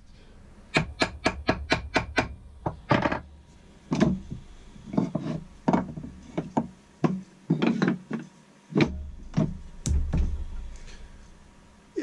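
Old cast-iron quick-release, cam-action vise being worked by hand. About a second in there is a rapid run of about eight clicks as the sliding jaw moves. Then come irregular knocks and thumps of wooden blocks against the iron jaws and the wooden bench as they are taken out and clamped back in.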